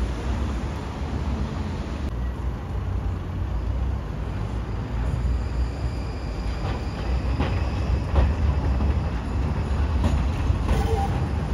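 Electric street tram passing close by: a steady rumble of wheels on rails, with a faint high wheel squeal and a few clicks as it runs over the track.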